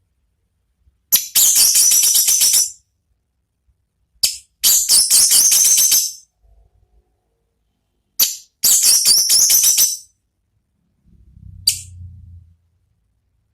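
Orange-headed thrush song: three bursts of rapid, high-pitched chattering, each about a second and a half long, separated by short pauses. A brief faint low rumble follows near the end.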